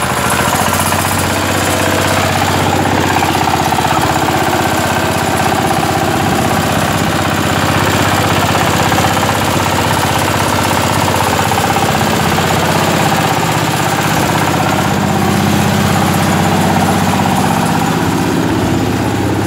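Small compact tractor's engine running steadily, with a rapid, even clatter, as the tractor drives along carrying passengers.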